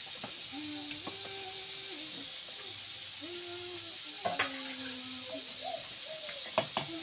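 Steady hiss from a gas cooker with a pot of beans boiling on it, with a few light clinks of pots and dishes and some short held tones in the background.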